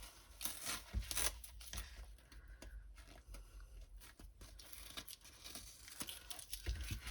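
Crinkly rustling and tearing-like crackles of a diamond-painting canvas and its plastic cover being handled and unwound from a foam roller, with the sharpest crackles about a second in.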